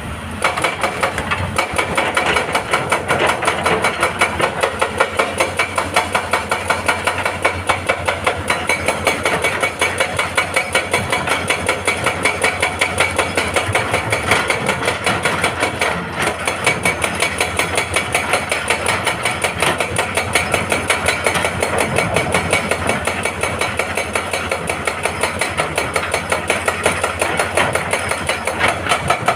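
Hydraulic breaker on a Hitachi excavator hammering rock, a fast, steady run of blows over the excavator's engine. The hammering starts just after the beginning.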